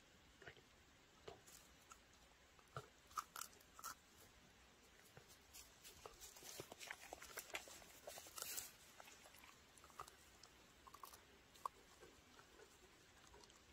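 A dog chewing and crunching on a piece of pine: faint, irregular crisp cracks and clicks, coming thickest in the middle stretch.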